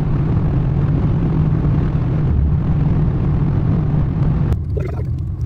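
A loud, steady low rumble with a droning hum, which drops away about four and a half seconds in; a short voice follows near the end.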